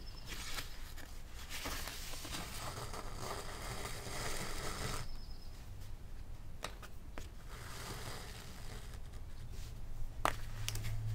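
Folded paper signature rustling and sliding as it is handled during hand sewing, with waxed thread drawn through the sewing holes. A few light taps follow in the second half.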